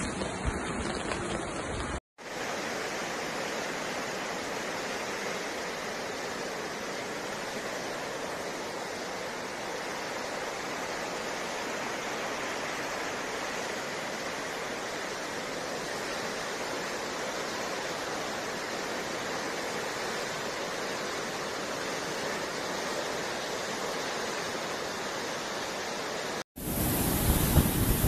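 Torrent of muddy floodwater rushing, a steady, even noise with no pauses. Near the end, after a cut, it turns louder, with wind buffeting the microphone.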